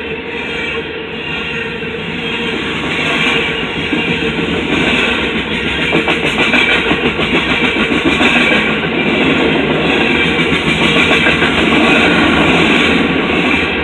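CSX coal train's freight cars rolling past, a loud, steady rumble and rattle of wheels on the rails that swells a little partway through.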